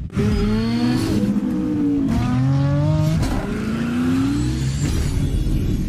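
A revving engine starts suddenly, its pitch sweeping up and down several times over a steady low rumble.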